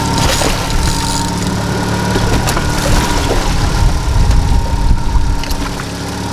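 Boat's outboard motor idling steadily, with a low rumble swelling louder about three to five seconds in and a few light knocks.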